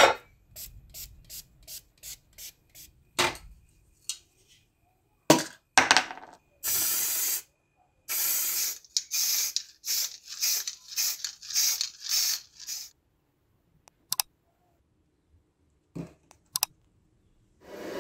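Aerosol spray-paint can spraying black paint onto the toy pistol's metal frame parts: one longer hiss, then a string of short hissing bursts. Before the spraying there is a quick run of light clicks and a few knocks.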